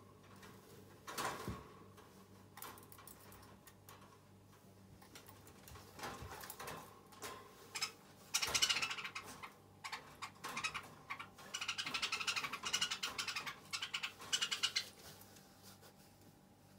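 A puppy scrabbling at a cardboard box, with scattered knocks and short scrapes, then longer runs of scratching and rustling in the second half.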